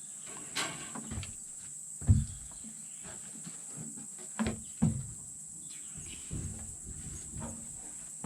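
A steady, high insect chorus drones, with several sharp knocks and thumps from handling around the sawmill, the loudest about two seconds in.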